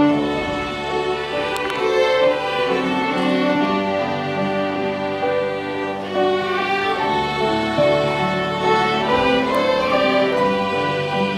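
Instrumental music with a violin melody over sustained, overlapping notes, playing steadily without a break.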